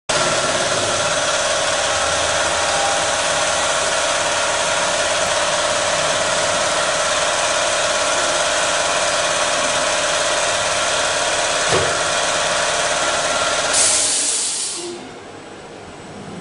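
CNC router running: a steady spindle whine over a loud rushing machine noise. Near the end a brief loud hiss comes, then the whine stops and the noise drops to a quieter steady hum.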